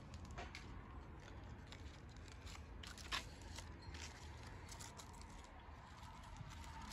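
Faint crisp snaps and rustling of cos lettuce leaves being picked off the plant by hand, with one sharper snap about three seconds in.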